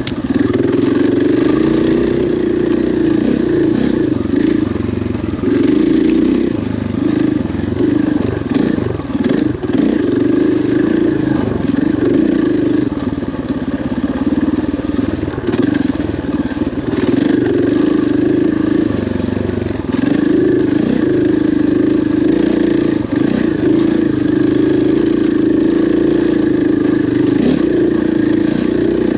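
KTM 500 XCF-W single-cylinder four-stroke dirt bike engine running under load, its pitch rising and falling as the throttle opens and closes. Scattered short knocks are heard over the engine.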